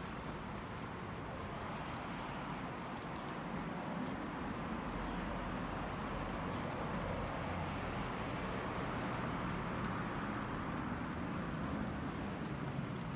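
Outdoor city street ambience heard while walking: a steady wash of mixed street noise that swells slightly around ten seconds in.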